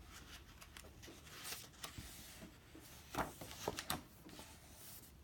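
Faint rustling of paper book pages being handled, with a few soft taps and rustles in the middle.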